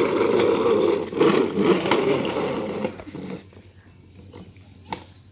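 Plastic wheels of a child's ride-on swing car rolling over textured paving tiles: a steady rumble with a few sharp clicks. It fades about three seconds in as the car moves away.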